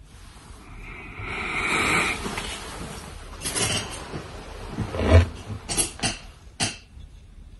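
A person's drawn-out shout of excitement, then several sharp knocks and bumps from the phone camera being handled and tipped over, the loudest about five seconds in.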